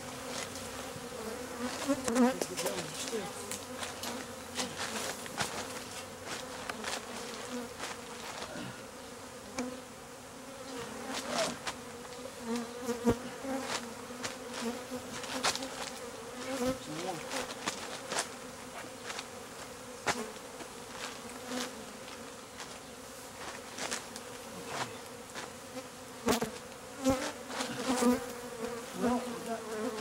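A large swarm of Africanized honey bees (killer bees) buzzing around their nest, a steady low hum that holds the whole time. Many short clicks and knocks are scattered through it.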